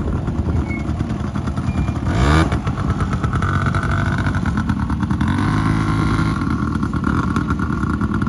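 Small quad bike (ATV) engines running as the riders pull away. One revs up sharply about two seconds in, then the engines run on steadily as the quads move off.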